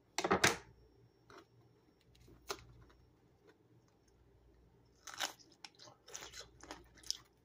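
A person biting into and chewing a raw lemon cucumber: a loud crunch just after the start, then a run of crisp chewing crackles from about five seconds in, the flesh firm and crispy.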